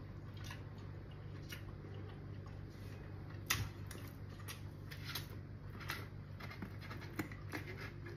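Quiet eating by hand: soft chewing and small scattered clicks of fingers and food against a plate, one sharper click about three and a half seconds in, over a low steady hum.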